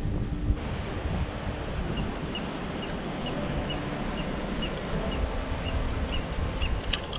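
Wind buffeting the microphone on an exposed sea cliff, with a bird calling in short high peeps, two or three a second, from about two seconds in to near the end.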